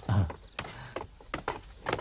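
Shuffling footsteps and light, irregular knocks as several people move about and take their places around a table, after a brief burst of a man's voice at the start.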